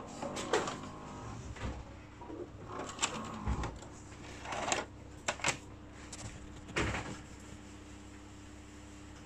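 A Sharp VC-H710 VHS VCR unloading and ejecting a cassette: its mechanism whirs and clicks, with a low clunk about three and a half seconds in as the tape comes out. Several sharp plastic clacks follow as the VHS cassette is pulled from the slot and set down, then only a low hum is left.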